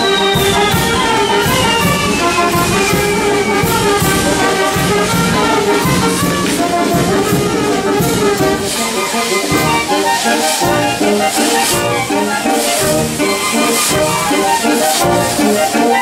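Wind band of clarinets, trumpets, trombones, saxophone and euphonium playing a tune, with a long falling whistle over it in the first few seconds and sharp hits scattered through it.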